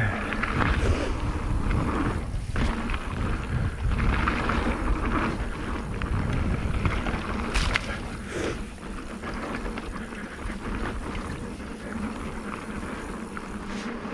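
Mountain bike tyres rolling fast over a dry, gravelly dirt trail, with the bike rattling over bumps and wind rushing across the camera microphone. It is a little quieter over the last few seconds.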